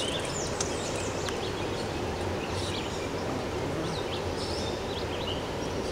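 Outdoor ambience: a steady background rush with small birds chirping in short, high, downward-sweeping calls scattered through it.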